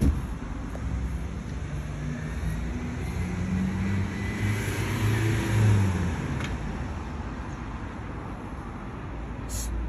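A road vehicle passing by. Its engine hum and tyre noise swell to a peak about five and a half seconds in and then fade, over a steady low rumble.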